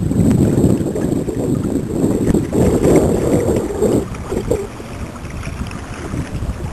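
Wind buffeting the microphone on a sit-on-top fishing kayak at sea, with water sloshing around the hull, easing off a little about four seconds in.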